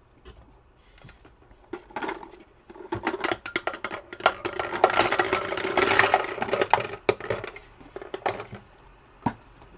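Trading cards being handled and put back in: quick rustling and clicking of card stock, starting about three seconds in and heaviest midway, with a single sharp click near the end.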